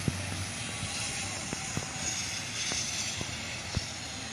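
A steady rushing noise with scattered short knocks, made by someone running across grass while holding the phone.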